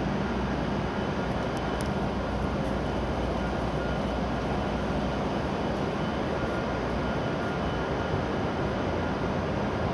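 Steady hum and rumble of an E7 series Shinkansen standing at the platform under the station roof, with no change in level.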